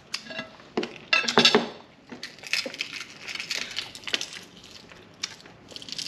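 Boiled duck egg (balut) shell being peeled by hand over a plate: a few sharp clicks of shell and spoon against the plate in the first second and a half, then a soft, fine crackling of shell fragments breaking off.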